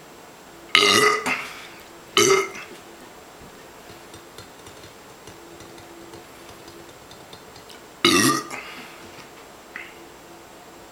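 A man belching loudly from drinking beer: three short burps, about a second in, just after two seconds and about eight seconds in, with a faint one shortly after the last.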